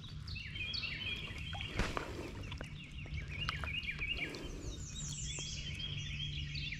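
Wild songbirds singing, a steady run of quick, high chirps and short trills. A single knock sounds about two seconds in.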